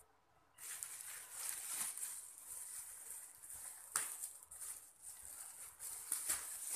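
Thin plastic shopping bag crinkling and rustling as hands grab and shift it, starting about half a second in, with a sharper crackle about four seconds in.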